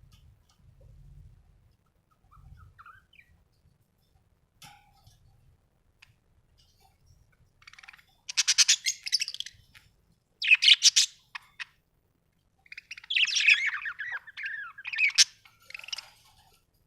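Budgerigar chirping in several loud, rapid bursts through the second half, after a mostly quiet first half with only a few faint clicks.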